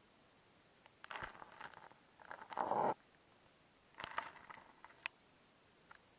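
Ice slush crunching and scraping in an ice-fishing hole, in three short bouts with sharp clicks, the loudest about two and a half seconds in.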